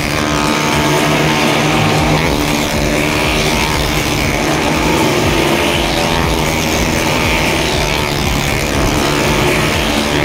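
Motorcycle engine running hard and steadily as the bike circles the vertical wooden wall of a well-of-death pit.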